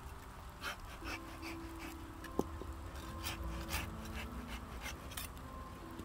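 Pruning work on a weeping pine: short rustling snips and strokes from hand shears and pine needles. There is a quick run of them about a second in, a sharp click about halfway through, and a few more near the end.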